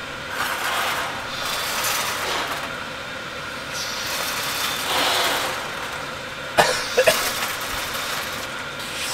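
Two people blowing up latex balloons by mouth: repeated breathy puffs of air blown into the rubber, with a couple of short, sharp squeaks a little before and at seven seconds in.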